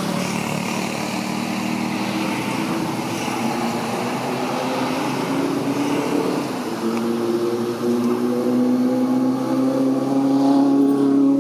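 A motor vehicle's engine running steadily nearby, its pitch and loudness rising slowly in the second half as it speeds up.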